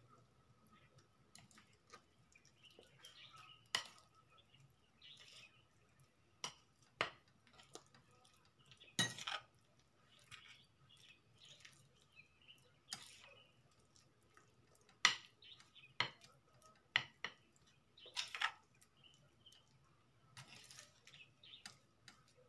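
Shrimp being mixed by hand into egg-and-flour batter in a ceramic bowl: irregular light clinks and knocks against the bowl, a few louder ones now and then.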